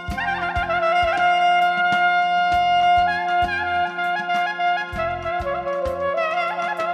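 Clarinet playing the ornamented lead melody of an Armenian song: a long held note, then quick trilled runs that dip lower and climb back near the end. Electronic drums and keyboard back it with a steady beat.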